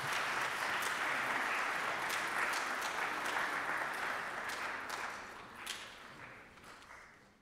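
Audience applauding, fading away over the last two seconds or so.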